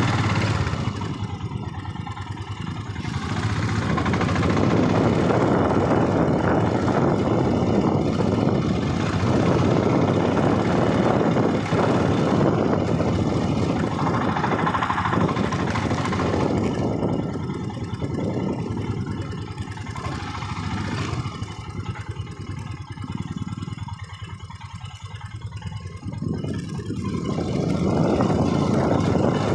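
Motorbike engine running on a ride, mixed with a steady rush of wind noise. It grows louder and quieter by turns, with a quieter stretch in the second half.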